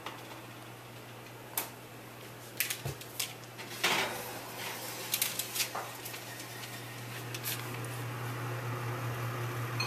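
Wall oven door opened and a metal baking sheet slid onto the oven rack: scattered clicks and metallic clatters, the loudest about four seconds in. Under them runs a steady low hum that grows louder toward the end.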